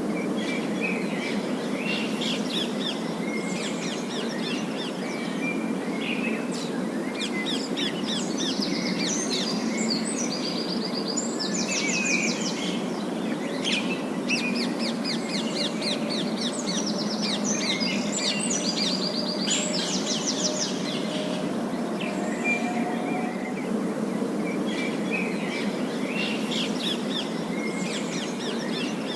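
Several parakeets chattering and warbling in rapid runs of high, trilled notes, busiest in the middle, over a steady low rushing background noise.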